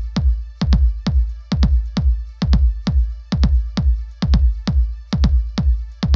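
Background electronic music with a steady driving beat of sharp drum hits, about two to three a second, over a heavy bass pulse.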